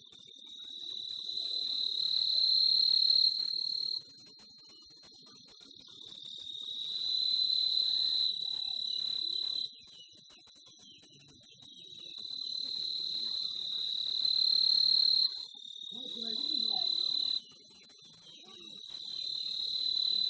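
Night insects trilling in long, high-pitched bouts that swell louder over a few seconds and then cut off abruptly, about five times, with short pauses between.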